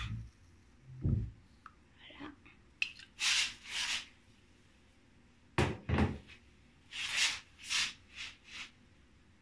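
An aerosol can of shaving foam being handled and dropped: dull thuds, a sharp double knock of the can hitting a hard surface about halfway through, and short hisses of foam being sprayed.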